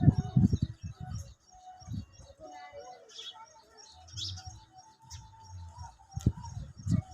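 Small birds chirping over and over, with low rumbling bursts in the first second and again near the end.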